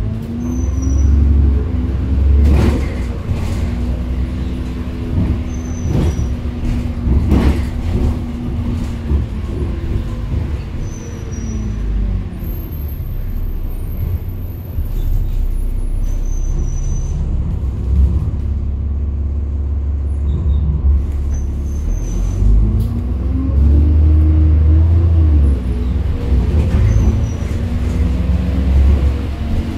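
Single-decker bus engine and drivetrain running, heard from inside the passenger cabin, with a steady low rumble and the engine note rising and falling as the bus pulls away and slows. A few sharp knocks in the first eight seconds, and a short high beep about every five seconds.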